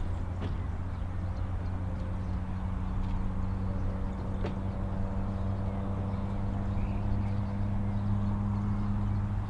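Steady low hum with a fainter higher tone above it, and two faint clicks.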